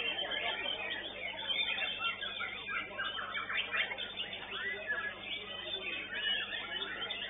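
White-rumped shama (murai batu) song, with other birds overlapping: a busy run of quick whistles, sweeps and chirps. A steady low hum sits underneath.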